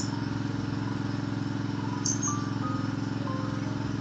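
A steady low buzzing hum, with a sharp mouse click at the start and another about two seconds in.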